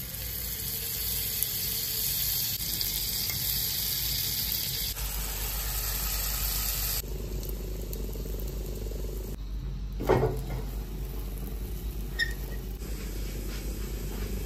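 Butter and oat pancake batter sizzling in a frying pan, a steady hiss that turns quieter about seven seconds in, with a single knock about ten seconds in.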